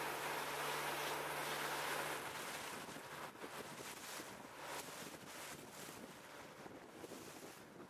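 A boat underway: water rushing past the hull and wind buffeting the microphone, over a steady low engine hum. About two seconds in, the hum and rush drop away, leaving gusty wind noise on the microphone.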